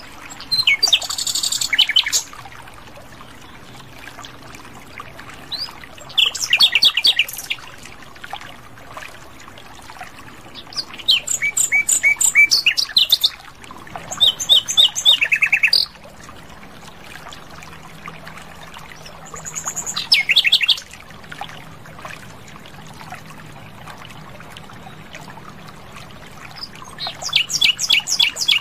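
Common nightingale singing: six short phrases of rapid repeated notes and trills, separated by pauses of a few seconds.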